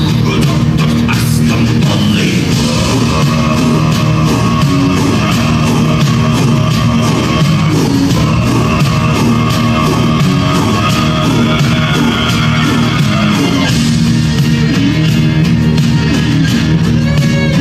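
Loud dance music with a steady beat, playing without a break.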